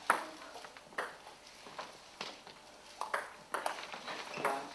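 Table tennis rally: the ball clicks sharply off bats and the table top at irregular intervals of about half a second to a second.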